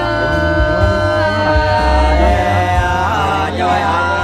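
Voices singing hát sli, the Nùng people's unaccompanied folk love-song sung in turns between groups, in long held notes that waver and glide.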